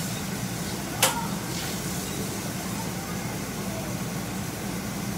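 Steady rush and hum of a pot of lentils boiling on a gas stove, with one sharp click about a second in.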